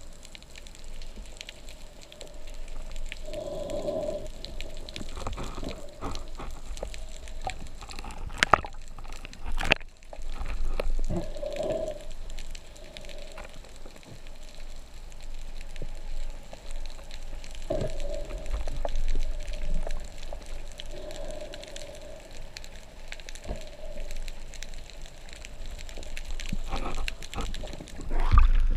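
Underwater ambient noise: a steady crackling hiss with a few muffled low swells, and two sharp knocks about eight and a half and ten seconds in.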